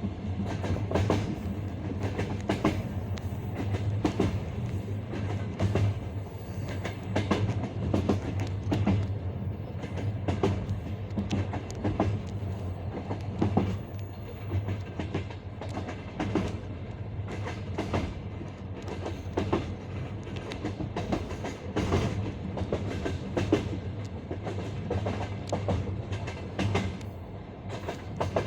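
Passenger train wheels clacking rhythmically over the rail joints of old-style jointed (non-welded) track, the classic clickety-clack, in clusters every second or two over a steady low rumble of the moving train.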